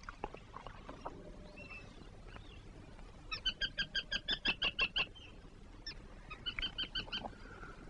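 A bird calling in two quick runs of short, evenly spaced notes, about six a second: the first run lasts nearly two seconds in the middle, the second is shorter near the end.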